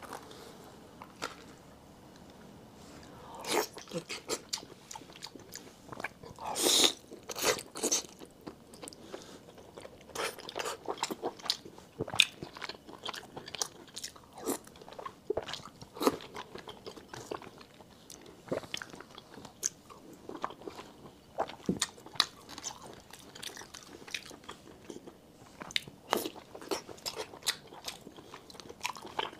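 Close-miked eating sounds of a person biting and chewing red-braised pork belly: irregular wet smacks and clicks of the mouth, busiest and loudest a few seconds in.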